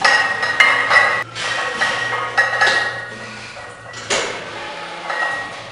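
Loaded barbell clinking and clanking, its plates and collars rattling on the bar as a heavy back squat is finished and the bar held. A few sharp metallic knocks come in the first second, with a stronger one about four seconds in.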